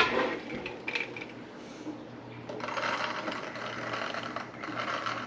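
Raw shelled peas poured from a cup into a glass canning jar, rattling steadily from about halfway in until just before the end. It opens with a sharp knock as the cup scoops into the bowl of peas.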